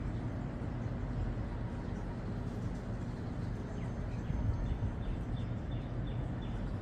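Steady low rumbling outdoor background noise. About five short, evenly spaced high chirps come near the end.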